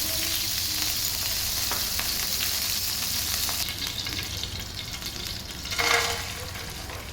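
Chopped cashew and almond pieces sizzling as they roast in hot ghee in a pan, stirred now and then. The hiss eases off about halfway through, and there is a short louder scrape about six seconds in.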